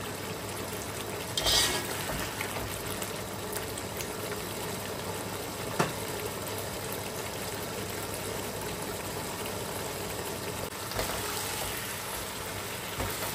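Mutton in its spice masala sizzling in oil in a pot on full flame while being stirred and fried down (bhuna). There is a louder scrape about a second and a half in and a single sharp knock against the pot near the middle.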